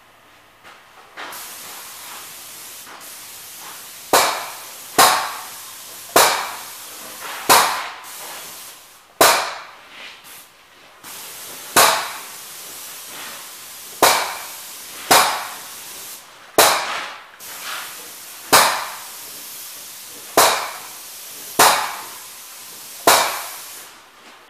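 Paint spray gun hissing steadily, starting about a second in, as grey primer is sprayed onto steel beams. Over it come about a dozen loud, sharp bangs at irregular gaps of one to two seconds, each ringing out briefly.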